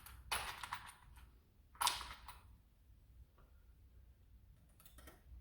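Small handling sounds of a hand screwdriver working on a small screw: a short scrape just after the start, a sharper rasp about two seconds in, then a few faint ticks.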